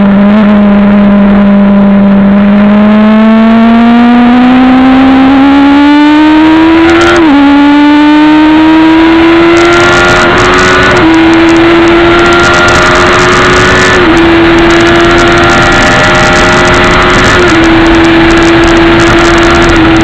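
Suzuki GSX-R750 SRAD's inline-four engine heard from on board, revs climbing slowly out of a corner, then pulling hard down a straight through four upshifts, each a brief dip in pitch. Wind noise rushes over the microphone throughout.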